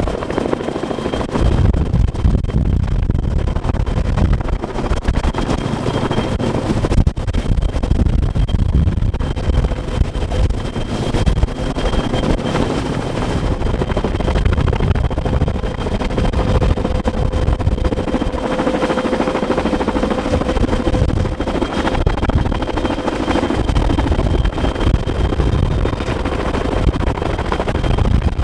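Columbia 107-II Vertol tandem-rotor helicopter hovering with a sling-load long line: the rapid chop of its two rotors runs over a steady high whine from its twin turbine engines.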